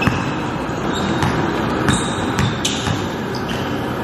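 Indoor basketball game: sneakers squeaking on the gym floor and a basketball bouncing, a few sharp knocks over a steady hall din.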